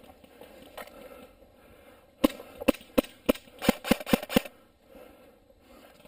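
Airsoft guns firing: about nine sharp snapping shots in an uneven string over a little more than two seconds, starting about two seconds in.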